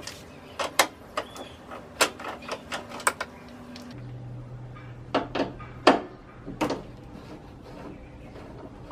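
Scattered sharp metallic clicks and knocks from a socket wrench and extension being handled and fitted onto a 10 mm bolt of the air filter box.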